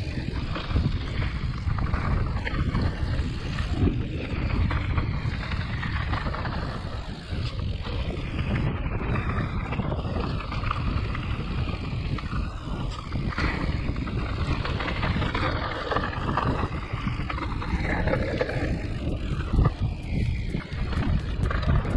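An e-mountain bike ridden down a rough trail: steady wind buffeting on the microphone and tyre rumble, with frequent knocks and rattles from the bike over the bumps.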